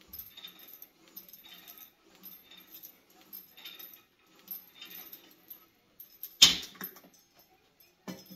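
Cable machine chain and handle jangling in a steady rhythm through tricep pushdown reps. About six and a half seconds in comes a loud metal clank as the handle is released and the weight stack drops, with a smaller clank near the end.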